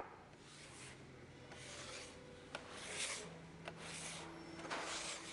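A series of rough rubbing or scraping swishes, about one a second, with a few sharp clicks between them over a faint steady low hum.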